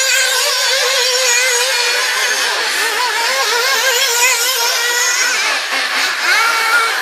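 Several radio-controlled model buggies racing round a dirt track. Their high-pitched motors overlap and keep rising and falling in pitch as they accelerate and slow for the corners.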